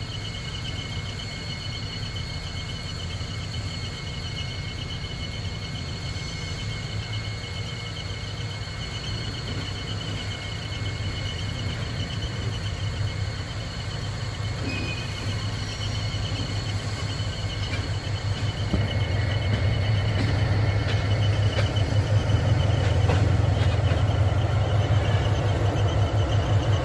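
EMD SW1500 switcher locomotive's two-stroke diesel engine running, a low, pulsing throb that grows louder as the locomotive draws near, loudest in the last several seconds.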